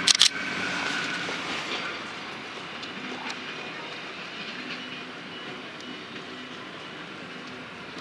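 1960s diesel railcars running, a steady engine rumble, with two sharp clicks right at the start.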